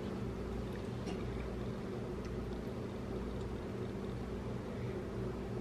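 A steady low hum under a faint hiss, with a couple of very faint soft clicks.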